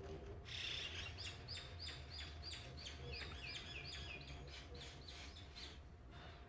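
A bird calling in a fast run of short, repeated chirping notes, about three to four a second, over a low steady hum.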